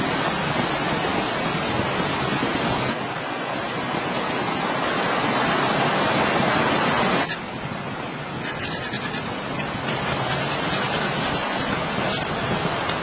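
Steady heavy rain, a dense even hiss. It changes abruptly about three seconds in and again about seven seconds in, and faint ticks come through in the later part.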